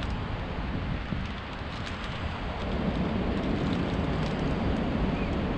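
Steady low rumbling noise of wind on the microphone and ocean surf, with a few faint ticks and crinkles from a plastic zip-lock bag being handled.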